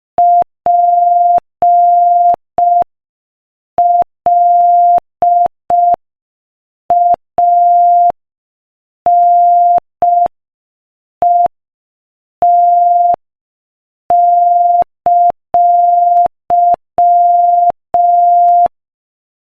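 Morse code sent at 5 words per minute: a pure beep tone of about 700 Hz keyed on and off in short dots and long dashes, grouped into letters with longer silences between them.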